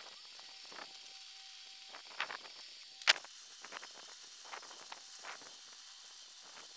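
Stick (arc) welding on steel with a cheap stick welder: the electrode's arc hissing and crackling steadily, with scattered sharp pops and one louder crack about three seconds in.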